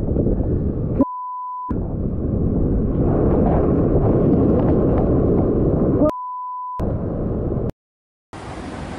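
Heavy surf breaking over shore rocks, with water splashing onto the body camera and wind on the microphone; the noise is loudest in the middle as a wave crashes over the camera. Twice, about a second in and about six seconds in, all sound is replaced by a steady high censor bleep lasting about half a second. Near the end the sound cuts out for about half a second, then steady surf and wind return.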